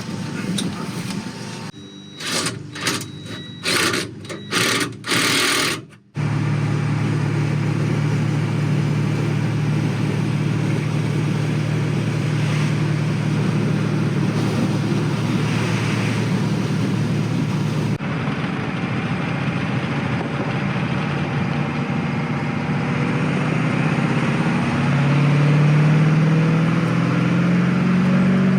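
Diesel engine of a piece of heavy equipment running steadily after a few seconds of short choppy bursts, then rising in pitch briefly near the end as it is revved.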